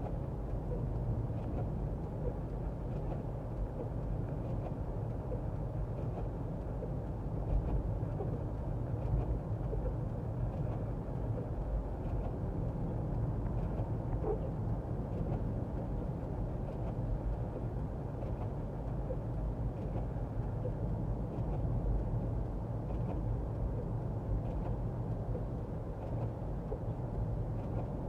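A car driving on a wet road: steady engine and tyre rumble with a low drone, with faint ticks now and then.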